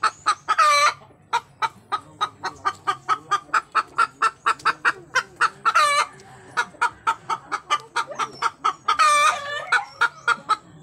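A hen clucking in a fast, steady run of short clucks, about four a second, broken three times by a longer, drawn-out squawk that falls in pitch, the pattern of a hen's cackle.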